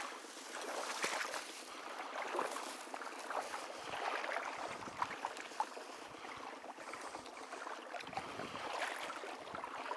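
Shallow marsh water sloshing and splashing in short, irregular bursts.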